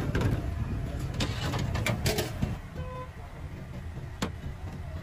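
Clinks and knocks of steel pots, platters and serving utensils over a steady low rumble of a busy street-food kitchen, with a cluster of clatters in the first half and one sharp clack about four seconds in.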